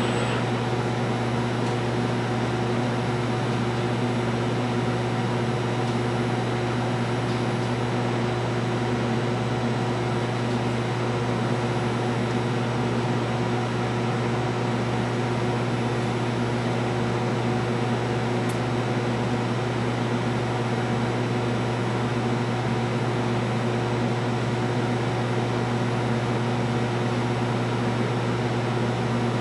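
Steady, unchanging machine hum with a strong low drone and an even rush of air, from the fans and equipment of a robotic spray-painting booth.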